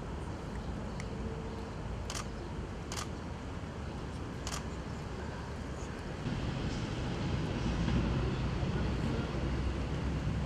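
Outdoor background noise with a steady low rumble. Three sharp clicks come about two, three and four and a half seconds in, and the rumble grows louder about six seconds in.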